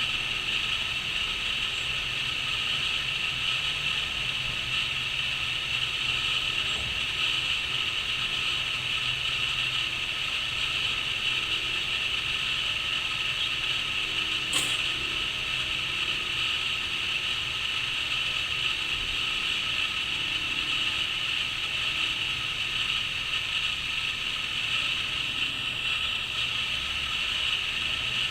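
Crickets chirring in a steady, unbroken high-pitched chorus, with one brief click about halfway through.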